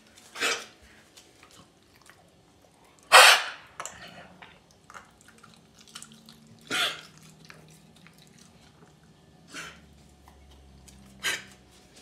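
Pit bull with kennel cough sneezing in short, sharp bursts, five times, the loudest about three seconds in.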